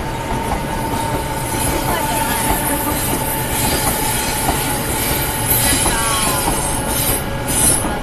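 Odakyu Romancecar 60000 series MSE electric train rolling over the level crossing, its wheels clattering, with a brief wheel squeal about six seconds in. The crossing's warning bell sounds steadily underneath.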